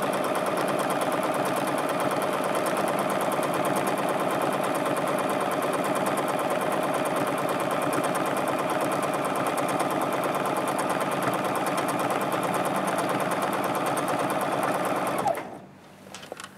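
Juki F600 sewing machine stitching steadily at high speed, a fast, even needle rhythm, while free-motion quilting with the feed teeth lowered. It stops abruptly about a second before the end.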